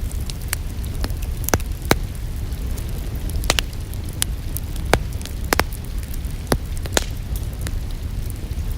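Wood fire crackling, with irregular sharp pops over a steady low rumble and hiss.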